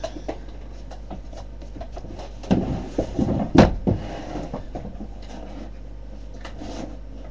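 Rummaging for felt-tip markers among drawing supplies: scattered light clicks and knocks, with a cluster of louder knocks and one sharp click about three and a half seconds in.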